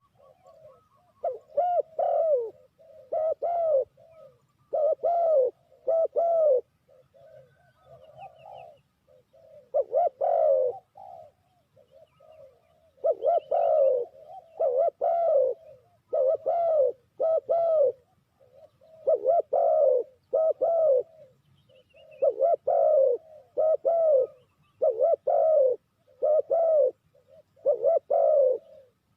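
Spotted dove cooing: repeated phrases of two or three low, arched coos with short pauses between phrases. Faint high chirps from other birds come in a few times.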